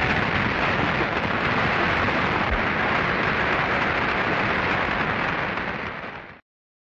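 A large hall audience applauding, a dense, steady sound of many hands clapping on an old recording. It fades and stops about six seconds in.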